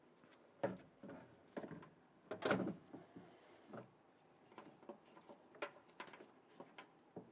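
Irregular knocks and clunks of a power door lock actuator being fed up inside a Honda Ridgeline's front door shell, the hardest knock about two and a half seconds in, followed by lighter ticks and taps.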